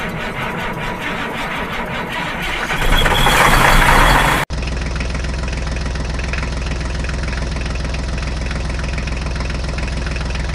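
Engine sound effect dubbed over toy footage: a rough engine sound growing louder, then an abrupt cut about four and a half seconds in to a steady idling engine with a fast, even throb.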